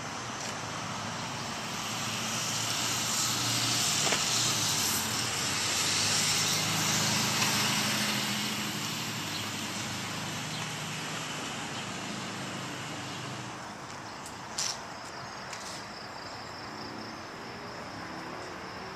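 A passing motor vehicle's engine and road noise swells, holds for several seconds and fades away about fourteen seconds in. A single sharp click follows shortly after.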